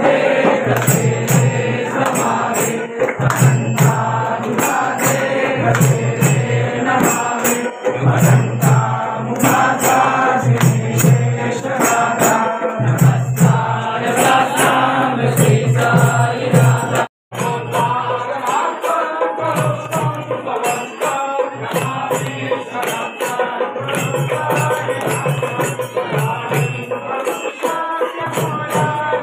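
Devotional Sai bhajan chanted by a group of voices over rhythmic jingling percussion from tambourine-like hand cymbals. The sound drops out for an instant a little past halfway, then carries on.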